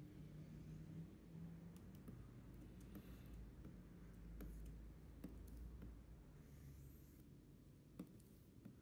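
Faint, scattered clicks of a stylus tapping on a pen display's screen, one sharper click near the end, over a low steady hum.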